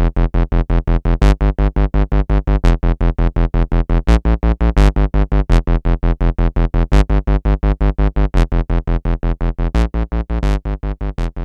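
Moog Werkstatt-01 analog synthesizer retriggering a low note about seven times a second, its gate clocked by the LFO's square wave. This makes a fast, even pulsing sequence. The note's pitch changes a couple of times, and a brighter pulse stands out about every second and a half.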